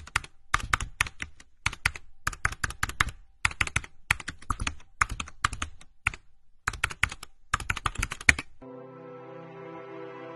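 Keyboard typing sound effect: quick runs of key clicks with short pauses between them. About eight and a half seconds in, the clicks stop and soft, sustained background music with held chords begins.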